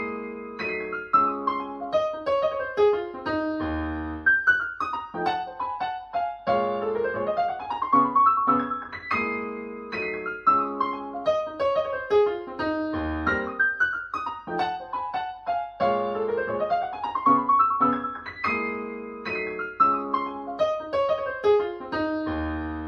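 Piano music played back through an Icon Audio MFV 3 Super floorstanding speaker: a repeating pattern of rising note runs, with a deep bass note sounding about every nine seconds.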